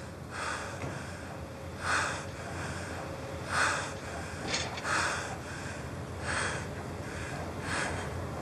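A person breathing heavily: a string of audible, hissy breaths about every second or so, over a steady low background hum.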